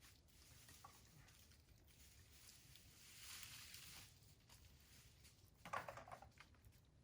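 Near silence with faint rustling, and a short crackle near the end.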